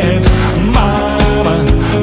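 Rock song playing: a full band with drums keeping a steady beat under bass and a melodic lead line.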